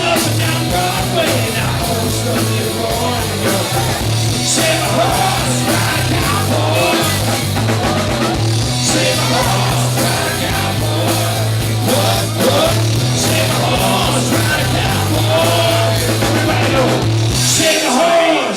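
Rock band playing live, with singing over bass guitar and drums. About a second before the end the bass and the band drop out, leaving the voice.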